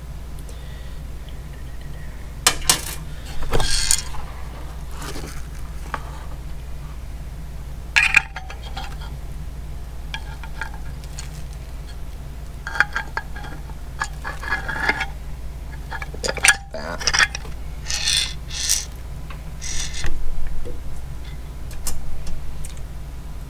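Handling noise from fitting a mounting bracket to an LED work light: small metal clinks of the bolt and bracket against the light's housing, with rustling of cardboard and bubble wrap, in irregular clicks and short bursts.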